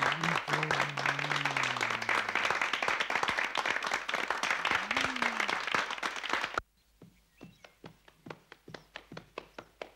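Theatre audience applauding, over a man's long moan that falls in pitch and fades within the first two seconds. The applause cuts off suddenly about six and a half seconds in, leaving faint, regular taps, about three a second.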